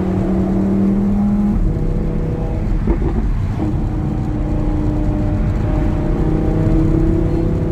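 Audi R8 V10's exhaust with the engine running steadily at idle, its note settling a little lower about one and a half seconds in, with a brief rougher stretch around three seconds in.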